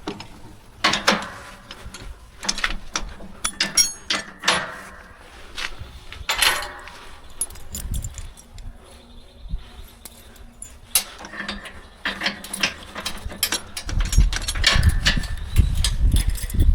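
Irregular mechanical clanks, knocks and short rattles, with a low rumble building over the last few seconds.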